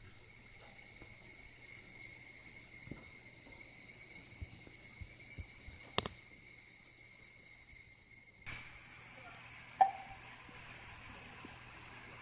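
Insects chirring steadily at a high pitch, with faint rustling, a single click about six seconds in and a short sharp sound near ten seconds.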